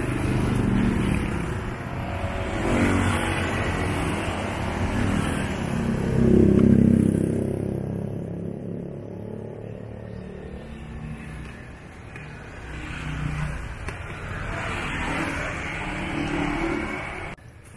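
Motor traffic passing on the street: several vehicles go by one after another, each swelling and fading, the loudest about six to seven seconds in.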